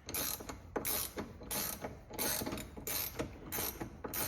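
Hand ratchet wrench clicking through repeated short strokes, about two to three a second. It is turning the nut on a bushing press tool's threaded bolt, drawing a stiffer STI rubber steering rack bushing into the subframe.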